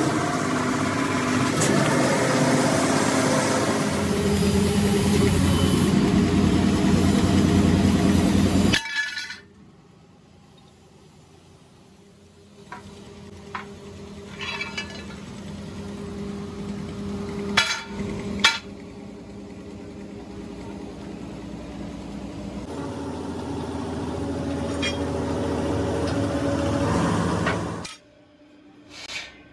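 Metal-forming press machinery running with a steady low hum, then a quieter stretch with a few sharp metal clinks as steel dies and a disc blank are handled, before the machine noise builds up again.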